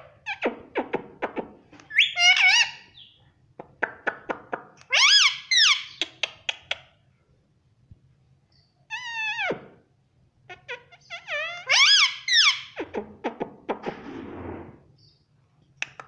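Indian ringneck parrot making runs of sharp clicks between four short, warbling squawky calls, with a raspy hiss about three quarters of the way through.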